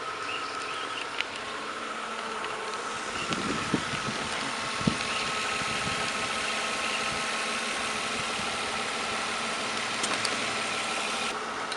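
A 2005 Nissan Altima's 3.5-litre V6 idling with the air conditioning on, a steady whine over the engine sound. A few light clicks and taps come from the recharge hose and quick connector being handled.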